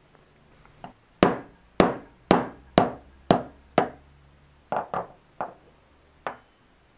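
Hammer tapping a 1/16-inch roll pin punch to drive out the gas tube's roll pin from an AR-15 front sight block: six sharp, ringing metal strikes at about two a second, then a few lighter, uneven taps.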